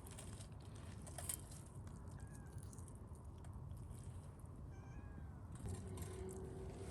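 A cat meowing faintly, twice, each call rising and falling in pitch.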